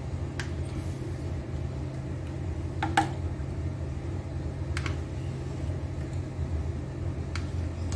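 A spoon clinking a few times against the pot while cream is stirred into cold milk, the loudest knock about three seconds in, over a steady low hum.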